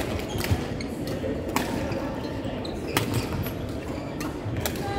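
Badminton rally: four or five sharp cracks of rackets striking a shuttlecock, irregularly spaced about one to one and a half seconds apart, over the steady din of a busy sports hall, with a few brief shoe squeaks on the wooden court.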